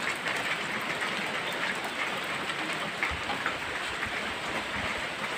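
Steady rain falling on leaves and ground, an even hiss dotted with many small drop ticks.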